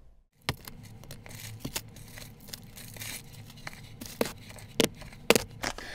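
Packaging being handled: plastic bags and packing paper rustling and crinkling, with a few sharp crackles scattered through.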